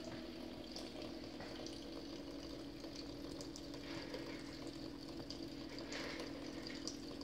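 A thin stream of water running from a kitchen tap into the sink basin, over a steady low hum.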